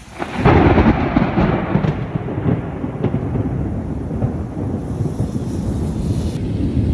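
A thunderclap breaks about half a second in and rolls on as a low rumble that slowly eases, over the steady hiss of falling rain.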